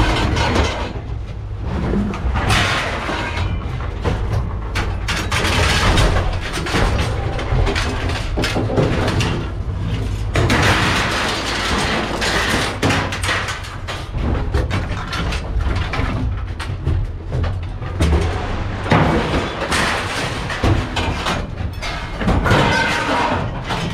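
Scrap metal being handled and loaded: irregular thumps, knocks and clatter over a steady low rumble.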